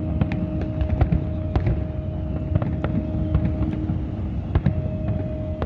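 Aerial fireworks display: an irregular rapid series of bangs and pops, several a second, over a continuous low rumble of bursting shells.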